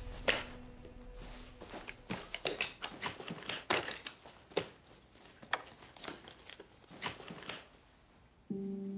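Rustling of shirt fabric with scattered small clicks and knocks as clothes are handled, in irregular short bursts. Soft background music fades out at the start and comes back near the end.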